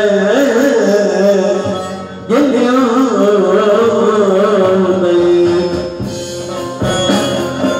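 A man sings a Turkish song into a handheld microphone, with long wavering, ornamented notes over instrumental backing music. His voice stops about six seconds in while the backing music plays on.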